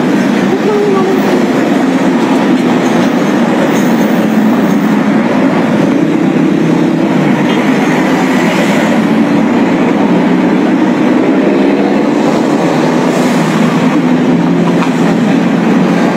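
Steady, loud rumble of vehicle engines and road traffic, unbroken and even in level.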